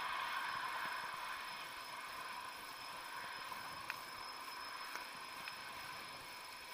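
Steady hiss of a bicycle being ridden, tyre and wind noise with a few faint steady tones over it, slowly getting quieter. Small clicks about four and five seconds in.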